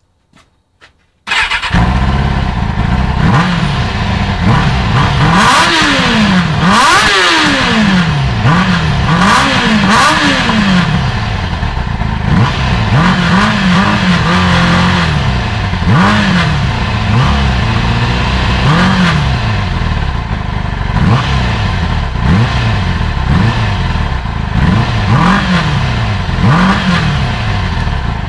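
Kawasaki ZX-6R's inline-four engine through an aftermarket Laser carbon exhaust. It starts about a second in and is revved repeatedly while standing, the revs climbing and dropping back in quick blips over and over, then cuts off near the end.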